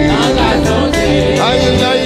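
Haitian gospel praise music (louange) playing, with a steady beat and a melody line that slides downward about half a second in.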